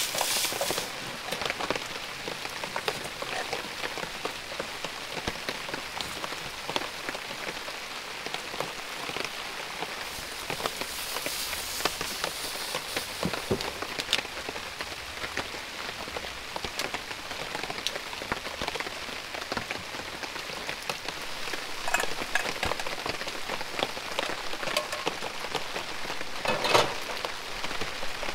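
Steady rain pattering on a tarp awning overhead, with a few light knocks and clicks of cooking gear on a cutting board.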